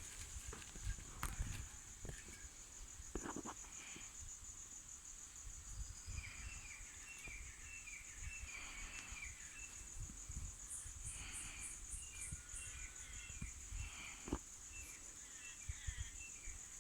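Steady, high-pitched insect trill with a fast pulse, with small birds chirping in short repeated notes through the second half and a few scattered knocks.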